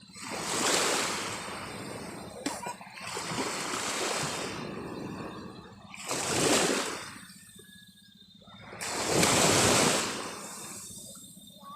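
Sea waves washing and splashing in four surges, each swelling and fading, about three seconds apart.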